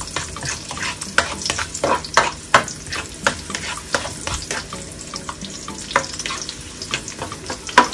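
Chopped garlic sizzling in hot olive oil as it browns, stirred with a spatula that clicks and scrapes against the nonstick pan several times a second.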